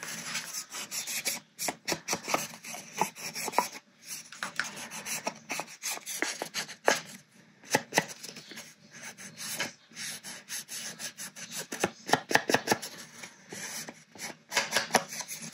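Small ink pad rubbed and dabbed along the edges of cardstock strips, a quick series of short scraping strokes that come in clusters.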